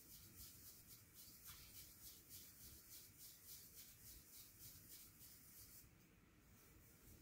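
Faint, rapid, even scratching of a white bamboo tea whisk (chasen) against the inside of a tea bowl as matcha is whisked, stopping about six seconds in.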